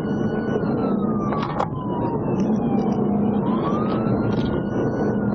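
Pursuing police cruiser's siren on a slow wail, rising and falling about once every four to five seconds, over steady engine and road noise at highway speed. A single sharp click comes about one and a half seconds in.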